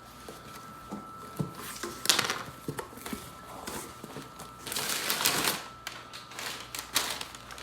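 Cardboard shipping box being handled and worked at: scattered taps and knocks, with two longer rustling, scraping stretches about two seconds in and about five seconds in.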